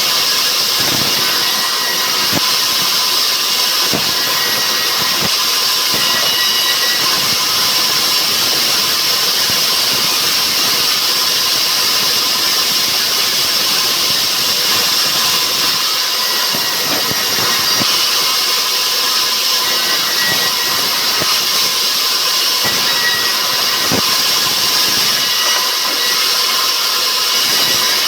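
Sawmill machinery running steadily under power: a loud, even hiss-like noise with faint steady tones in it and occasional light knocks.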